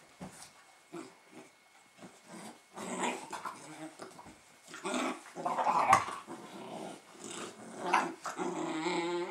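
Fila Brasileiro puppies growling while they play-fight, with scuffling on the couch. The growls start a few seconds in and are loudest about halfway through.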